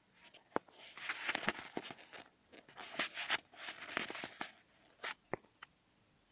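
Typing on a computer keyboard: irregular key clicks with short runs of clatter.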